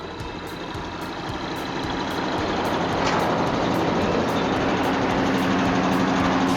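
Branch chipper running, its engine drone steady and slowly building. A brief sharp sound comes about three seconds in, and a steady hum joins near the end.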